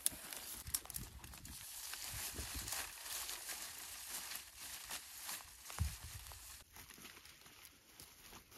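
Dry reed stalks rustling and crackling as bundles are handled and stood against a wooden frame, with a dull thump near six seconds in.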